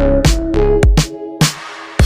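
Background music with a steady drum beat and short melodic notes. About two thirds of the way through, the beat and notes stop, leaving a faint hiss.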